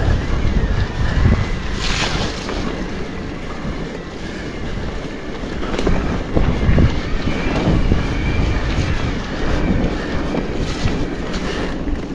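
Wind rushing over the microphone of a mountain bike in motion, with the rumble of tyres rolling over a stony track.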